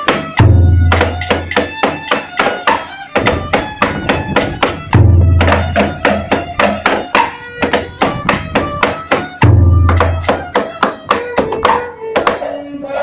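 Traditional ritual music with a run of quick, pitched plucked notes, punctuated by three deep booms from a large red barrel drum struck with a wooden stick, about half a second, five seconds and nine and a half seconds in.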